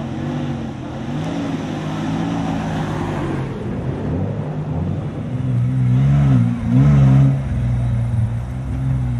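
Off-road 4x4's engine revving as it pulls away from the start, its revs rising and falling several times and loudest about six to seven seconds in.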